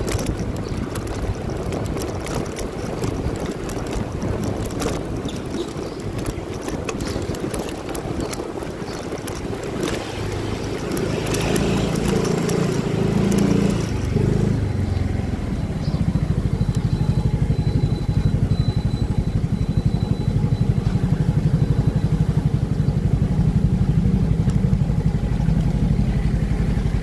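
Motorcycle ride with wind rushing over the microphone. About halfway through, the wind dies away and the motorcycle's engine settles into a steady idle.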